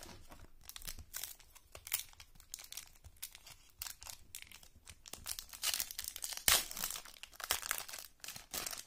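Foil wrapper of a 1997 Playoff Contenders football card pack crinkling in the hands and being torn open: a dense run of sharp crackles, with the loudest rip about two-thirds of the way through.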